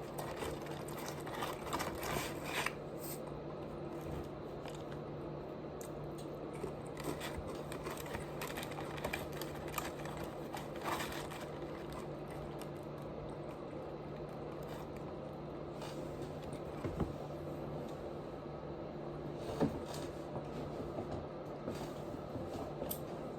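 Close-up chewing and munching of food: soft wet squishes and crunches at irregular moments, a few sharper crunches about 17 and 20 seconds in, over a steady low hum.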